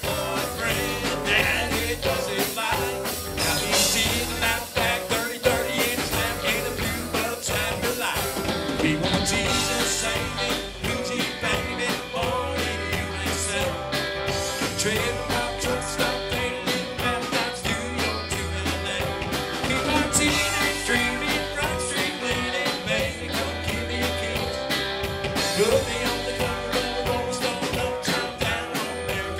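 Live band playing country rock on electric guitars and drum kit, with a steady beat.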